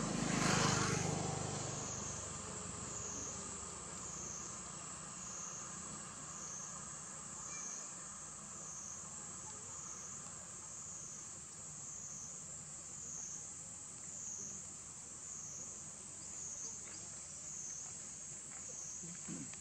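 Steady high-pitched chorus of insects, wavering slowly in level and pitch. A louder rush of broad noise comes in the first second and fades.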